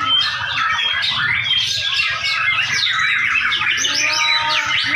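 Many caged songbirds hung up for a singing contest, all singing at once: a dense, continuous chorus of fast, overlapping chirps and trills.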